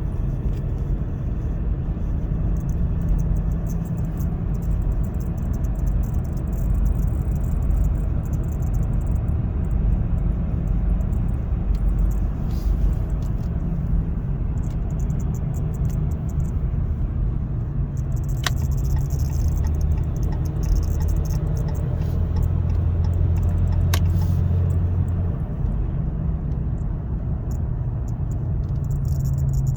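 Inside the cab of a 2015 Ram 1500 EcoDiesel pickup on the move: steady road and engine rumble, with the steering-wheel horn button buzzing and rattling as the truck is driven. Two short ticks come through, about two-thirds of the way in and again a few seconds later.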